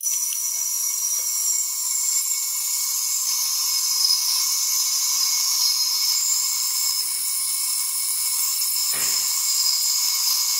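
Portable ultrasonic homogenizer probe running in water: a steady, loud, high-pitched hiss and whine from cavitation at the tip, starting suddenly as the unit switches on. A brief low knock about nine seconds in.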